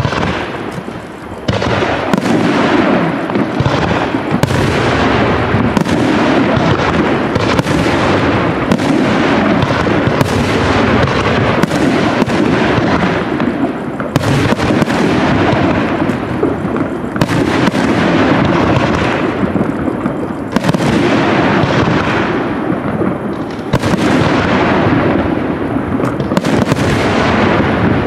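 Aerial fireworks shells bursting in quick succession: a loud, unbroken barrage of booms running into one another, with heavier volleys breaking out every few seconds.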